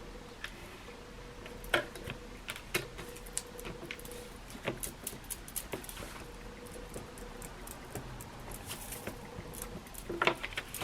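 A pen drawing short lines on paper: scattered light scratches and taps, some in quick runs, others spaced out.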